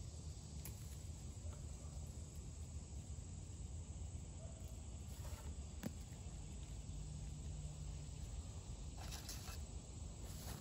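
Rotted water oak punk wood being broken apart and handled: faint scattered crackles and small snaps, a sharper snap about six seconds in and a short burst of crackling about nine seconds in, over a steady low background rumble.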